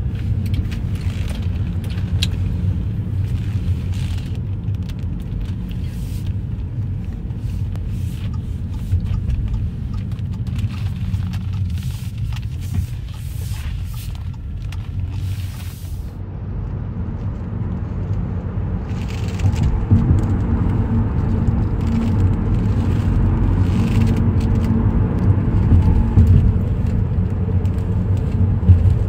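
Engine and road noise inside a moving car: a steady low rumble with scattered small clicks and knocks. It grows louder about two-thirds of the way through.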